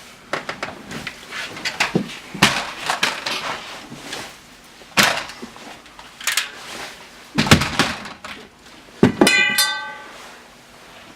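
Irregular thuds, knocks and clinks of things being moved about and set down, with a short squeak near the end.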